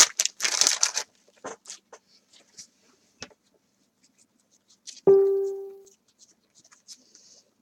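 Foil card-pack wrapper crinkling and tearing for about the first second, then a few faint taps of cards being handled. About five seconds in comes a single short chime-like musical note that dies away within a second.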